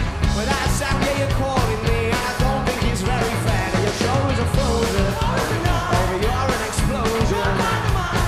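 Live rock band playing a fast song: drum kit, electric guitars and bass guitar, with vocals over the top.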